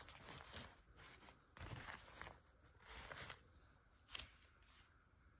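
Faint rustling of shiny synthetic shorts fabric being handled, in four or five short bursts.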